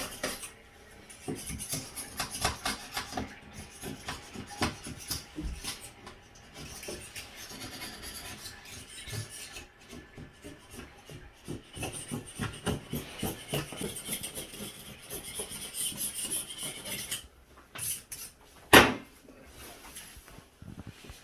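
Rapid, repeated scraping and rubbing strokes as old caulk and residue are cleaned off the floor where the old toilet sat. A single sharp knock comes near the end.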